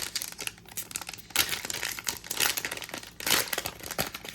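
Trading-card pack wrapper being torn open and crinkled by hand, an irregular crackling rustle with a few louder surges.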